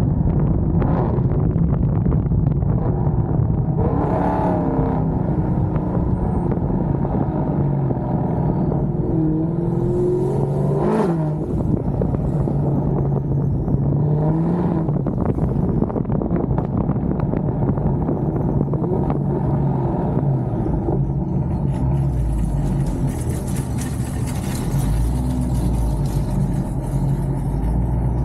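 Chrysler 300's 6.4-litre HEMI V8 breathing through long-tube headers and a Corsa exhaust, heard from behind the car while driving. The engine note rises and falls through a few short pulls, then runs lower and steadier near the end.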